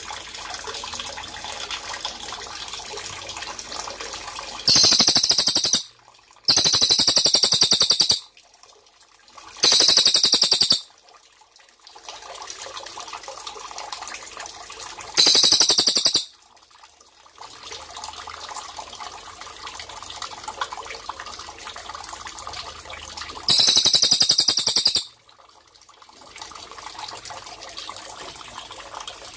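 Cililin (black magpie) giving five loud, high, rapid trills, each lasting one to two seconds, over a steady trickle of running water.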